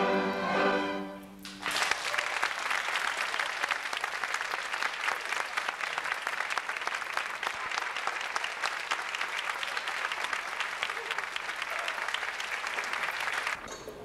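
A school string orchestra holds its final chord and fades out. About two seconds in, an audience breaks into steady applause that lasts roughly twelve seconds and cuts off suddenly near the end.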